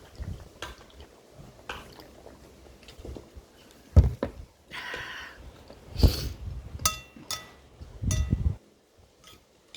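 Eating at a table: metal cutlery clinking and knocking against a plate several times, with a few ringing clinks about seven seconds in. Between the clinks there are chewing noises and a short hiss-like rush about five seconds in.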